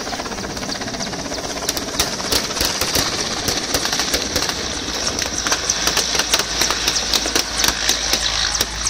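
A large helicopter lifting off and flying away low, its rotor and turbines running with a steady low rumble that grows stronger in the second half. Many sharp, irregular cracks and pops sound over it, coming thicker from about two seconds in.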